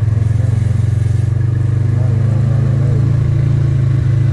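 A small off-road vehicle's engine running steadily close by, with a rapid, even low pulse.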